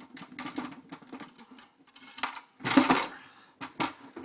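Screws being undone from the top housing: clicks and short bursts of tool noise, the strongest about two to three seconds in and again near the end.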